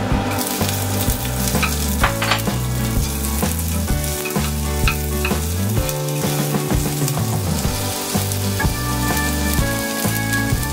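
Sliced leek sizzling in hot beef tallow in a cast-iron pot and stirred with a wooden spoon, frying first to scent the fat. The sizzle starts at once as the leek hits the fat, and chopped onion goes in near the end.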